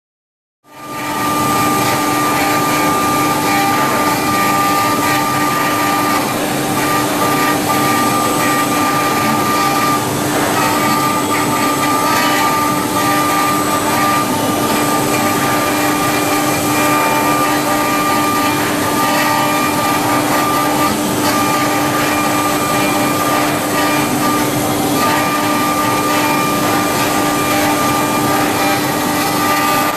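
Multi-spindle four-axis CNC router carving jade under water coolant: the spindles run with a steady whine over a constant cutting and grinding noise. It fades in just under a second in and then holds steady.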